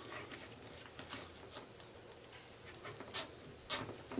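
Plastic poly deco mesh rustling and crinkling as it is gathered and bunched by hand, quiet, with a few short sharp crinkles in the last second or so.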